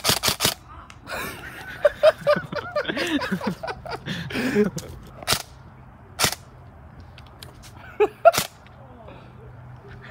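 People's voices talking indistinctly, with sharp knocks cutting through: a quick run of three or four at the start, then single ones spaced a second or more apart.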